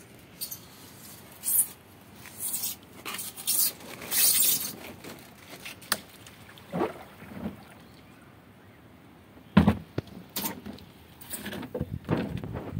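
A plastic tub of water being handled and tipped out onto concrete: scattered splashes and scrapes, with one loud knock a little past halfway and a cluster of knocks near the end.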